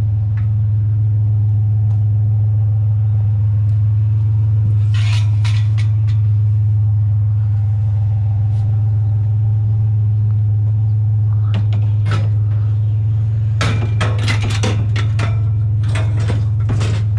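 Truck engine running with a steady low drone, with bursts of metal clanks and rattles about five seconds in and through the last few seconds.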